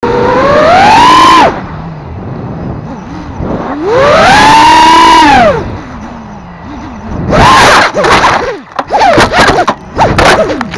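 Whine of an FPV racing quadcopter's brushless motors (Rotor Riot Hypetrain) and tri-blade propellers, heard on the onboard camera. The pitch climbs on a throttle punch at the start, then rises and falls on a second long burst. In the last few seconds it turns into choppy, erratic throttle bursts with sharp clicks as the quad goes into a tree's branches.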